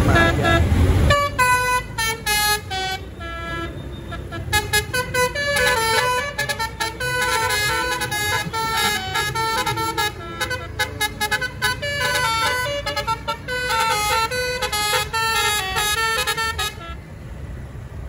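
Bus telolet basuri horn playing a fast tune of stepping multi-tone notes, starting about a second in after a low rumble and cutting off about a second before the end.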